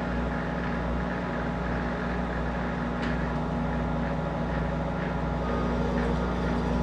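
Monarch 10EE toolmaker's lathe running steadily with the carriage under power feed, taking a thread-cutting pass: an even machine hum with a couple of steady tones. A light click about three seconds in.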